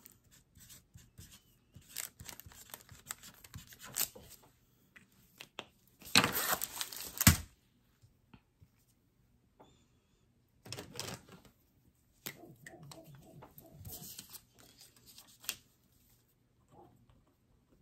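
Plastic packaging rustling and crackling as a diamond painting canvas with its plastic film and strips of bead packets are handled on a table, in irregular bursts. The loudest burst comes about six seconds in and ends in a sharp snap.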